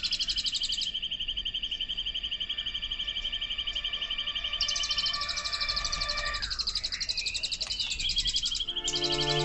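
Birdsong of fast, high, repeating trills over faint sustained music tones; the music swells back in near the end.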